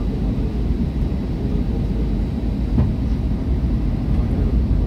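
Steady low roar inside the cabin of an Airbus A320neo descending to land, engine and airflow noise heard at a window seat, with a faint knock about three seconds in.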